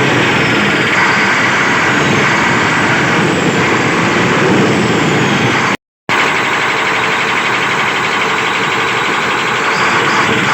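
Cummins six-cylinder diesel engine of a SEM 650B wheel loader running steadily, with a brief dropout about six seconds in.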